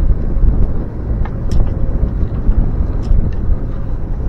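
Small outboard motor pushing a 24-foot sailboat at low, no-wake speed: a steady low rumble with a faint steady hum, and a few light clicks.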